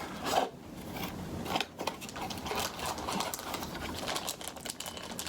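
Rustling and light irregular knocks and clicks of box contents and packaging being handled and taken out.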